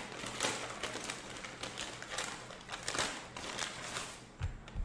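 A run of irregular sharp clicks and taps, a few a second.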